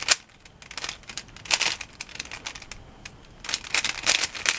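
Plastic Rubik's cube layers being twisted by hand, clicking and scraping in short flurries of turns: a sharp click at the start, a run of turns about a second and a half in, and a longer run near the end.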